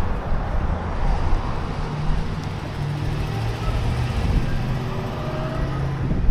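Street traffic: a motor vehicle drives past on the road, its engine hum and tyre noise steady over the rush of the street.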